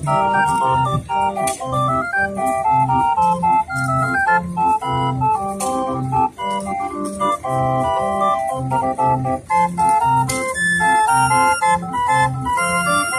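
Hand-cranked street organ playing a tune: a melody of pipe notes over a regular bass note about twice a second.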